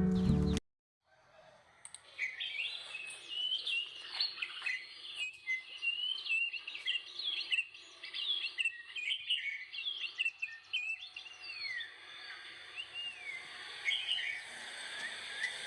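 Small birds chirping and twittering busily, many quick sliding chirps overlapping, starting about a second and a half in after guitar music cuts off.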